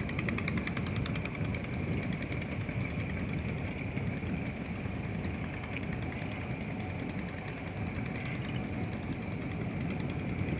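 Boat engine running steadily with a low drone, as it moves the pontoon barge on the river. A faint, fast ticking runs through the first couple of seconds.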